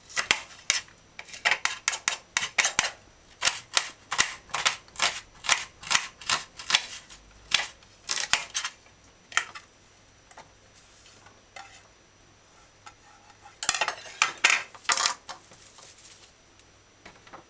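Kitchen knife slicing an onion on a plate, the blade tapping the plate with each cut in quick runs of several taps a second, which stop about nine seconds in. A second short run of clatters comes about fourteen seconds in.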